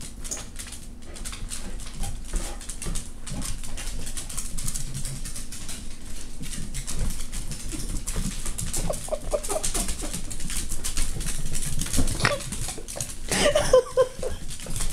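A dachshund and a beagle mix playing together: claws skittering and scrabbling on a hardwood floor in many quick clicks, with short whimpers and yips from about halfway, loudest near the end.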